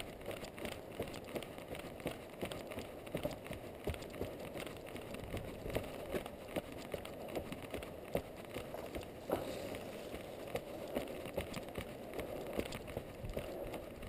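A runner's footsteps on a dirt trail, sped up into a fast, irregular patter of short crunches.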